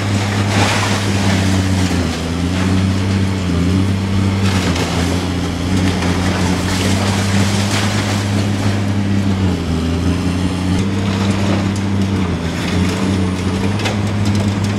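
Diesel engine of a Caterpillar long-boom demolition excavator running steadily under load, its pitch dipping and rising slightly as the hydraulics work. Over it, irregular crunching and clattering of concrete debris as the attachment breaks into the building's upper floor.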